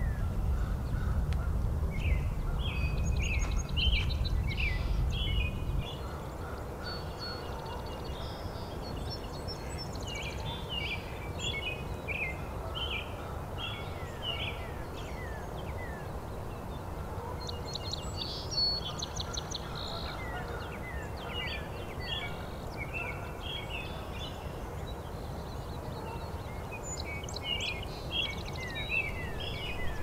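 Many songbirds singing at once, a dawn chorus of short chirps and quick trills overlapping throughout. A low rumble runs under them at first and drops away about six seconds in.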